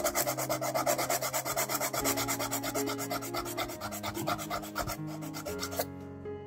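Coarse sandpaper rubbed rapidly back and forth over a model car part, several scratchy strokes a second, flattening ridges on the surface. The sanding stops shortly before the end.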